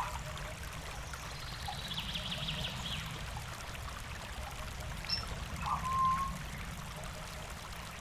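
River water flowing steadily. Over it, a short high rattling trill comes around two seconds in, and a brief whistled bird call about six seconds in.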